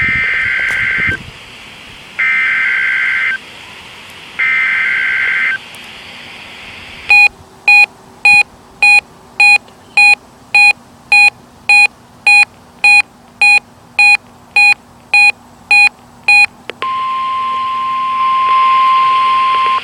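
NOAA Weather Radio Required Weekly Test signals over a weather radio: three one-second bursts of the SAME digital header, a warbling two-tone data sound, each followed by a second's pause. Then a run of about sixteen short electronic beeps, nearly two a second, and near the end a steady single-pitched warning alarm tone.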